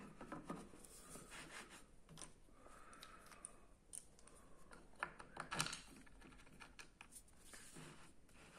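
Faint handling sounds: an MDF block shifted on an MDF base, and light clicks and scrapes as a small adjustable clamping lever is fitted into the slot and turned. A few sharper clicks come about five seconds in.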